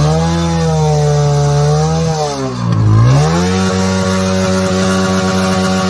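TVS Apache RTR 160's single-cylinder four-stroke engine on its stock silencer, revved and held twice. It climbs and holds steady for about two seconds, drops back toward idle about halfway through, then climbs and holds again. A plain, normal stock exhaust note.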